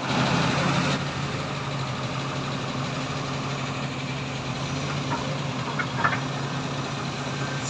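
Diesel engine of a Tata tipper truck idling steadily at close range, a little louder in the first second. A few brief high squeaks come about five to six seconds in.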